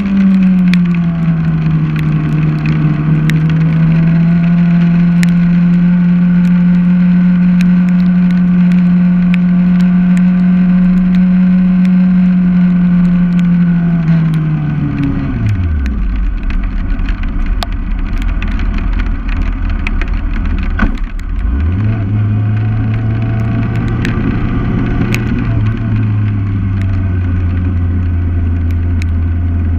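Vehicle engine running at a steady moderate speed, its pitch slowly sinking, then dropping to idle about fifteen seconds in. About twenty-two seconds in it picks up again and runs on at low revs.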